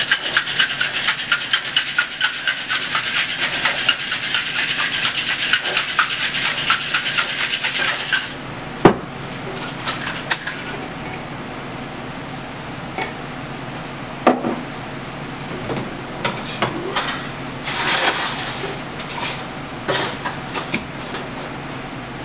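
Boston cocktail shaker, a metal tin capped with a mixing glass, shaken hard with ice: a fast, loud rattle of ice for about eight seconds, then it stops. A sharp knock follows as the shaker is broken open, then scattered clinks of glass, metal and ice.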